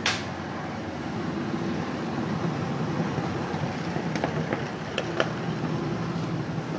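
A procession of touring motorcycles passing one after another, their engines running steadily. A brief sharp burst of noise comes right at the start, and a few light clicks come a little past the middle.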